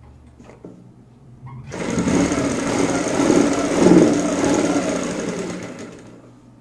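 Sewing machine starting up about two seconds in and running steadily as it stitches over stretched elastic in a waistband, then slowing and stopping near the end.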